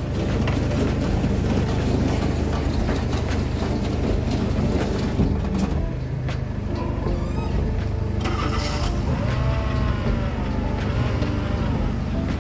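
Flatbed tow truck's engine running steadily with a low, even hum while it drives the hydraulics that raise the bed.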